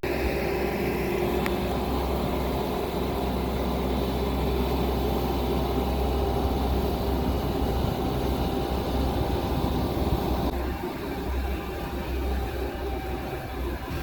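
A vehicle engine running steadily, its low hum easing slightly about ten and a half seconds in.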